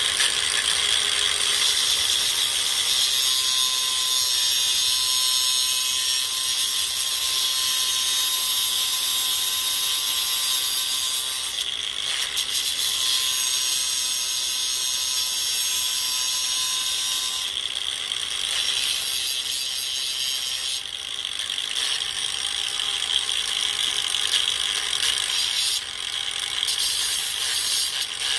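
Cordless angle grinder running with a cutoff disc, grinding the end of a steel antenna whip down a little to shorten it for tuning. The steady high-pitched whine drops in level several times as the whip is eased off the disc.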